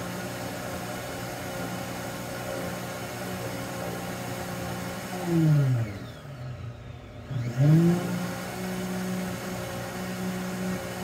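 Vevor Professional blender's motor running steadily, blending sliced mandarin oranges inside its clear enclosure on the smoothie preset. About five seconds in, the motor winds down to a brief pause, then winds back up about a second and a half later and runs on as the preset program cycles.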